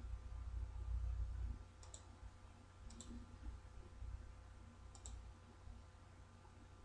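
Computer mouse button clicked three times, a second and then two seconds apart, each a quick double tick of press and release, over a low rumble.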